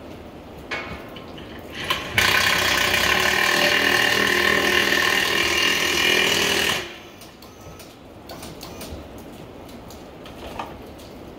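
Power impact wrench working on a monster truck's wheel: two brief blips, then one loud, steady run of about four and a half seconds that cuts off suddenly.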